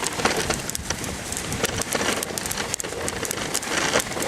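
A moving dog sled on snow: a dense, steady crackling hiss of the runners sliding over snow and the team's paws pattering.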